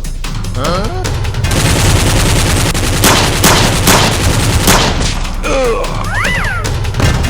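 Background action music with a burst of rapid gunfire sound effects in the middle: a dense rattle with several sharp shots over about three seconds. Short sliding, rising-and-falling tones come just before and after the burst.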